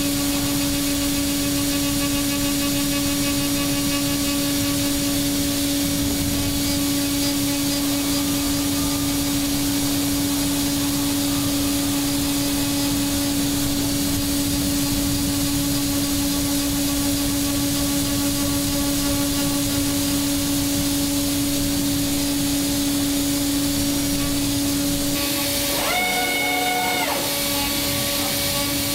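CNC milling machine's spindle and cutter milling a metal cylinder head: a steady high whine over a constant hiss. Near the end the whine breaks for a second or two, with a short higher-pitched tone.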